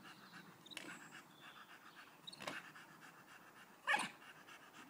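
Staffordshire bull terrier panting faintly while nudging a football along with her nose, with a few short sharp sounds, the loudest about four seconds in.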